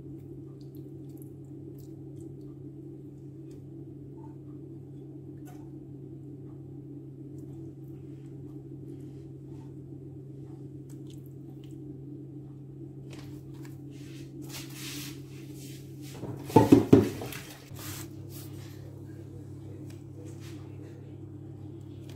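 Raw seasoned chicken pieces squishing softly as hands press them into a glass baking dish, over a steady low hum. About two-thirds through there are a few seconds of rustling and a brief loud knock.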